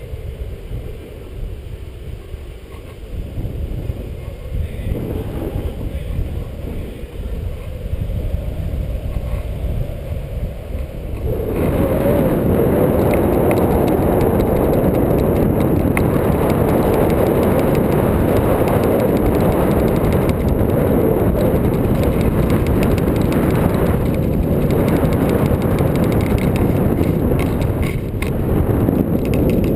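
Wind buffeting the action camera's microphone during a tandem paraglider flight, a steady low rumble of rushing air that jumps louder about a third of the way in and stays loud.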